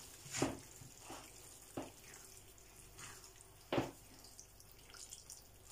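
Thick chilli con carne simmering in a frying pan and being stirred with a silicone spatula: several short wet strokes through the sauce, the loudest about half a second in and near four seconds, over faint bubbling.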